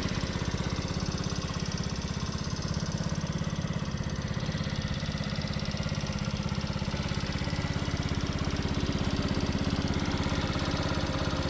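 Lifan LF70GY-3 72cc minibike's small single-cylinder engine idling steadily, with an even, rapid exhaust pulse.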